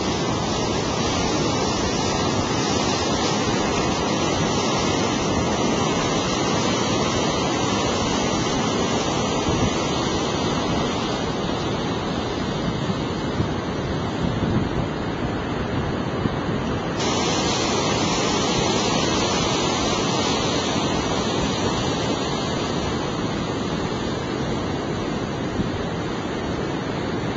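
Steady rushing noise of breaking surf mixed with wind on the microphone. The tone shifts abruptly about two-thirds of the way through.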